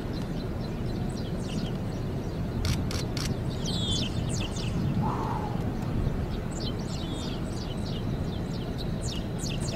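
Steady wind noise on the microphone in an open field, with small birds chirping in many short, downward-sliding notes throughout. Three sharp clicks come close together about three seconds in.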